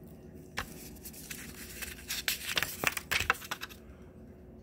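Paper rustling and crackling as a printed quick start guide booklet is handled, a run of sharp crinkles that is loudest about two to three and a half seconds in.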